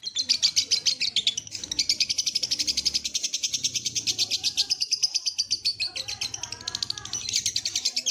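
Lovebird ngekek: a long, unbroken chattering trill of rapid, shrill notes repeated many times a second.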